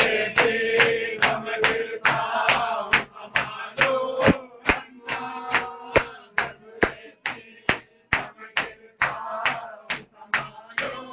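Group of men chanting a Muharram lament (noha) together while beating their chests in time: sharp hand-on-chest slaps at a steady beat, about two to three a second. The chanting drops away after a few seconds, leaving mostly the slaps, and comes back near the end.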